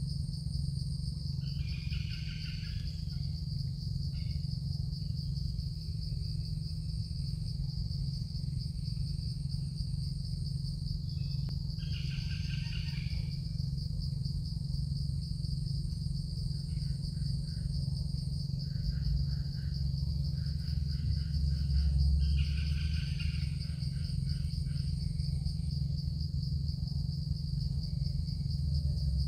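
Insects trilling steadily at a high pitch, with a few brief calls about two, twelve and twenty-two seconds in, over a low steady rumble.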